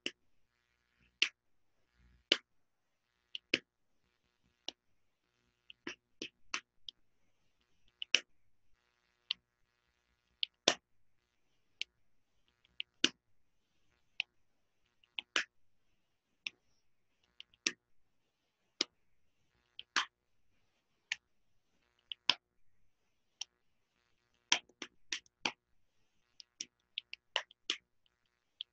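Sharp, isolated clicks at irregular intervals of roughly a second, bunching into a quicker run near the end, with near silence between them.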